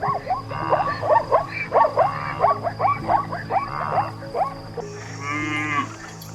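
A chorus of short, rapidly repeated animal calls, several a second, sweeping up and down in pitch. A single harsher, buzzy call follows near the end, over a steady background music drone.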